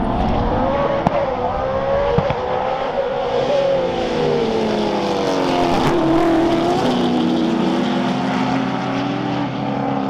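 A pack of sports sedan race cars accelerating hard off the race start, several engines at once with overlapping pitches rising and falling through gear changes as the field pulls away. Two sharp cracks stand out about one and two seconds in.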